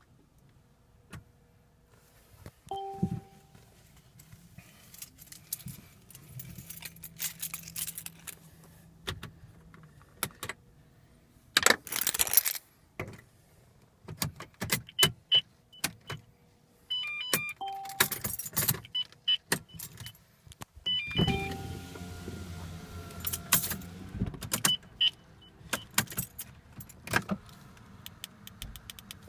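Keys jangling and clicking against each other, with scattered clicks and rattles and short repeated electronic beeps from the 2015 Mercedes C300, which is not starting. No engine is heard running.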